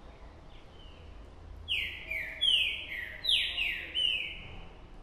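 Caged songbird singing a loud phrase of about six clear whistled notes, each sliding downward in pitch. The phrase starts a little under two seconds in and ends shortly before the end, with fainter notes before it.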